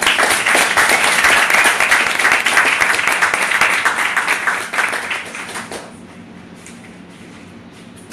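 Audience applauding with dense clapping that tapers off and stops about six seconds in.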